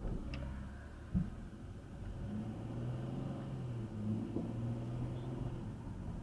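Car engine pulling away from a stop and accelerating, heard from inside the car, with a steady low drone of engine and road. A single sharp knock about a second in.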